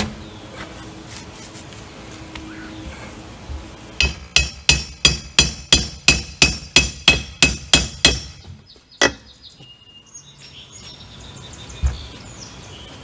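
A hammer striking a steel nail-pulling bar in a fast even run, about four ringing taps a second for about four seconds, then one harder strike and a duller knock, while nails are worked out of old builder board sheathing.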